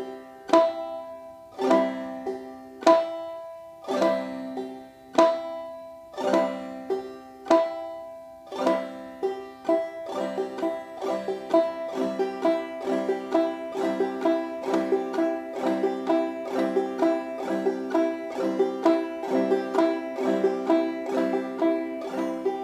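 Five-string banjo played clawhammer style, the basic strum. It starts with slow, evenly spaced strokes about a second apart, and about ten seconds in it moves to a quicker, steady rhythm of a single note, a brushed strum and the thumb on the fifth string.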